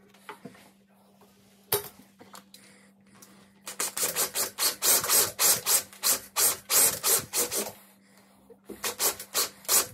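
Festool cordless drill boring into a wooden newel post. The bit rasps through the wood in rapid pulses, about four a second. It stops briefly and then starts again near the end.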